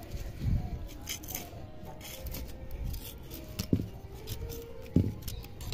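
A flat tool scraping and prodding hard, dry potting soil along the inside wall of a terracotta pot to loosen a root-bound plant. There are scattered short scrapes, a dull thud about half a second in, and two sharp knocks in the second half, the last one the loudest.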